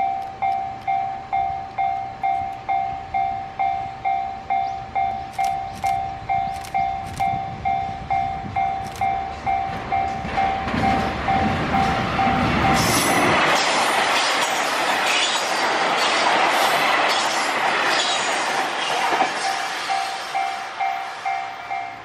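Japanese level-crossing warning bell ringing steadily, about two to three dings a second. A HOT7000-series diesel express approaches with a growing rumble, then passes with loud wheel clatter over the rail joints for several seconds, drowning the bell until it is heard again near the end.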